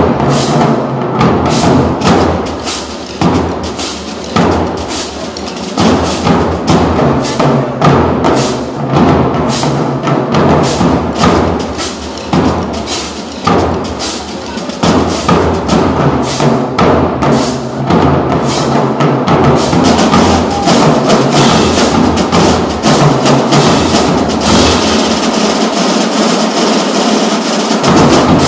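Marching drumline playing: snare drums, tenor drums and bass drums in fast, dense strokes with crash cymbals, echoing in a gymnasium. From about twenty seconds in the cymbals ring more continuously, and near the end there is a sustained cymbal wash over the drums.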